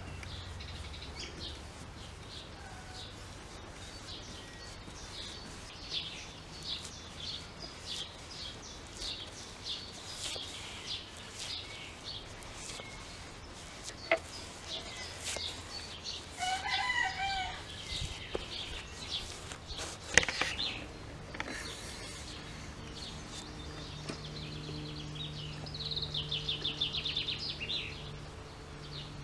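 Outdoor birdsong: many short repeated chirps, a lower wavy call about halfway through and a fast trill near the end. Two sharp clicks stand out, one about halfway and the loudest a few seconds later.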